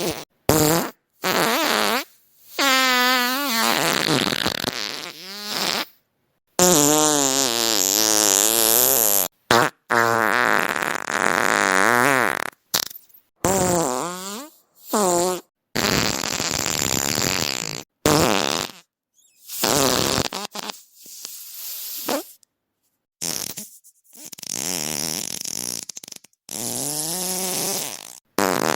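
A string of separate fart sounds, one after another, most lasting one to three seconds. Several are long and wobble up and down in pitch, and each cuts off abruptly with a brief silence before the next.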